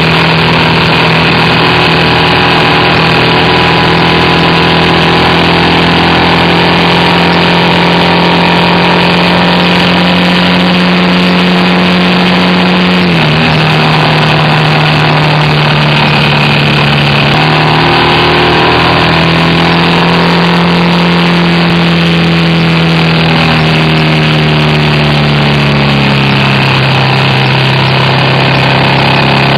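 BMW R1200RT's boxer-twin engine running at road speed under a steady haze of wind and road noise. The engine note steps down sharply about halfway through, then climbs slowly and eases off again near the end.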